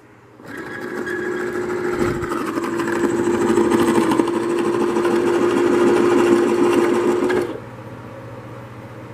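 Electric drill running steadily while boring a hole, with a steady whine. It starts about half a second in and stops suddenly about a second and a half before the end.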